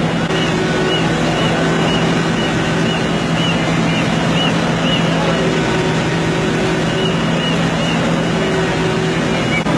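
Heavy diesel engine of a railway crane running steadily under load as it lifts a derailed locomotive, with a steady low hum. A faint high chirp repeats about twice a second through the first half and again near the end.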